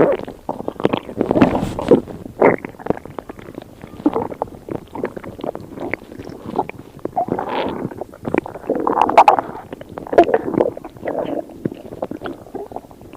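Stomach rumbling and gurgling: an irregular string of short squelches, growls and clicking pops.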